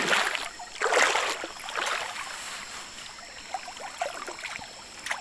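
River water splashing and sloshing as a gill net is pulled up out of the water by hand, with a fish splashing in the mesh. Two louder splashes, at the start and about a second in, then lighter trickling and dripping.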